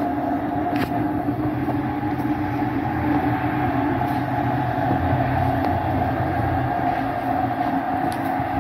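Steady mechanical drone of a running machine, an even hum over hiss, with a few faint clicks.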